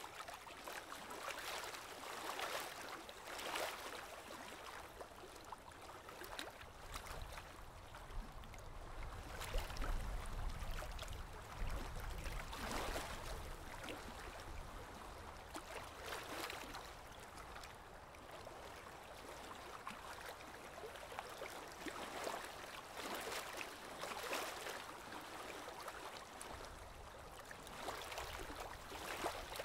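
Water trickling and gurgling in a goldfish aquarium, a steady splashing wash that surges irregularly every second or so. A low rumble rises under it for a few seconds about a third of the way in and again near the end.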